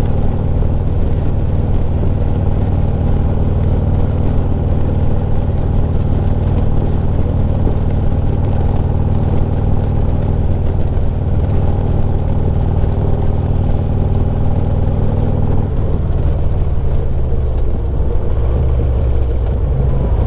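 Harley-Davidson Street Glide's V-twin engine running at cruising speed, with wind noise through a cracked-open helmet face shield. About three-quarters of the way in the engine note drops as the bike slows for traffic ahead.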